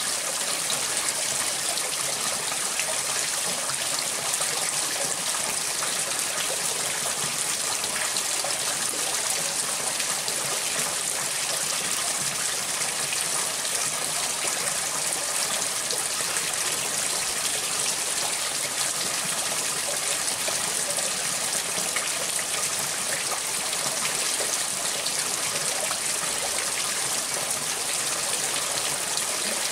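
Water pouring steadily into a plastic basin and overflowing its rim, splashing and trickling down onto a board.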